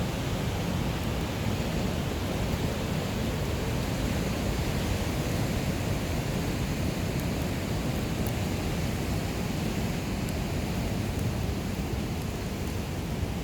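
Steady rush of sea surf with wind, an even noise without breaks.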